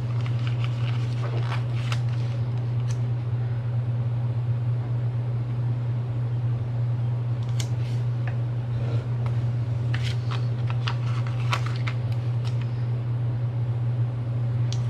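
A steady low hum throughout, with scattered light paper crinkles, ticks and taps as stickers are peeled off a sticker sheet and pressed onto planner pages, a cluster of them around ten to twelve seconds in.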